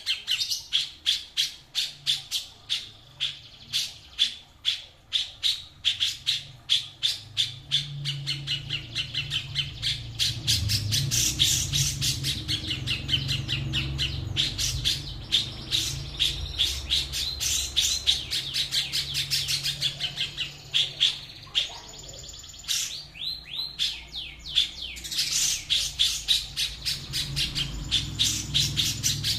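A songbird calling in fast runs of sharp repeated notes, several a second. Near the end it holds one whistled note, then gives a string of downward-sliding notes.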